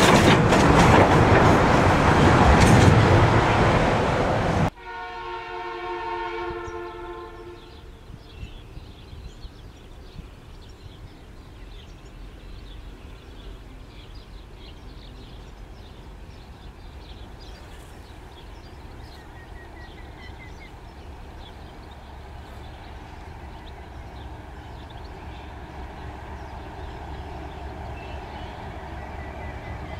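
Empty flat freight wagons rolling past close by, wheels clattering over the rail joints, cut off abruptly a little under five seconds in. Then a diesel locomotive's horn sounds a multi-tone chord for about three seconds in the distance, followed by the low rumble of the approaching train, growing slowly louder.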